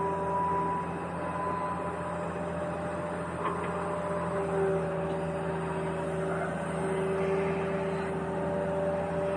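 Motorized toy construction vehicle running: a steady mechanical hum with several held tones over a rough grinding noise.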